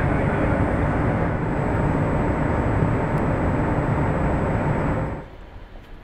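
Loud, steady rushing noise of air handling and machinery in a particle-detector hall, with faint steady hum tones in it. It cuts off abruptly about five seconds in, leaving quiet room tone.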